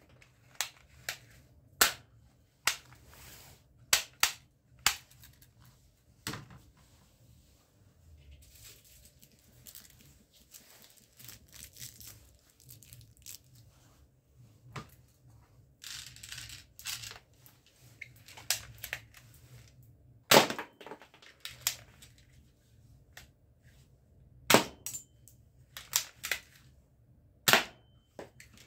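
Spring-powered toy airsoft pistol firing plastic BBs: sharp single snaps, several seconds apart, with small cocking and handling clicks between them. Through the middle stretch, softer clicks and rattling as the green plastic pellets are loaded into the pistol.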